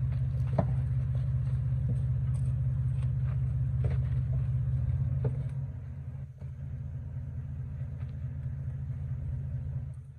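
Third-generation Toyota 4Runner idling steadily while stopped on the rocks, its engine hum dropping noticeably in level a little past halfway. A few light knocks sound over it.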